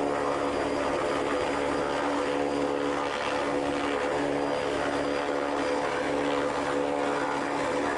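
ATR 72's twin turboprop engines running at a steady setting as the airliner rolls along the runway: an even propeller drone with a few constant hum tones and no change in pitch.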